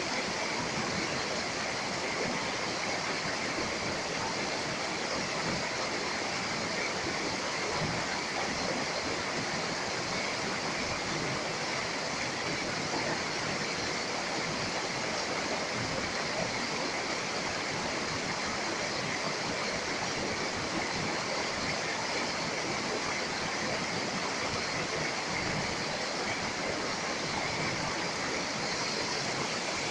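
Shallow mountain creek rushing steadily over and around boulders, a constant hiss of white water.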